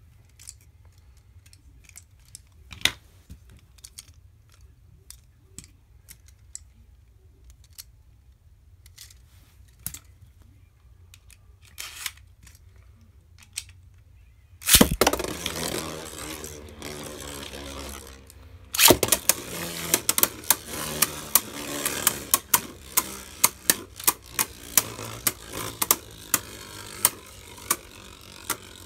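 Faint scattered clicks, then, about halfway through, Beyblade Burst spinning tops are launched into a plastic stadium with a sudden loud rush of spinning and scraping. After that comes a run of sharp plastic clacks, about two or three a second, as the tops collide while spinning.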